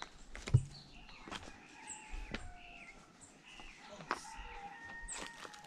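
Birds calling with short chirps and whistled notes, broken by a few sharp knocks, the loudest about half a second in.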